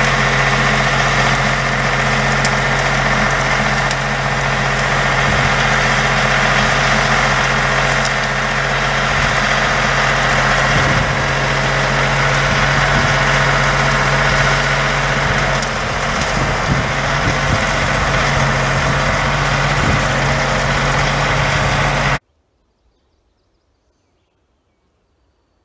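Compact tractor's engine running steadily with a constant drone as the tractor works its front loader at a brush pile. The sound cuts off abruptly about 22 seconds in, leaving near silence.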